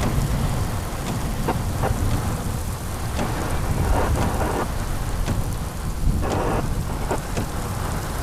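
Heavy thunderstorm: rain pouring down with a continuous low rumble of thunder, and scattered sharp taps of raindrops hitting close by.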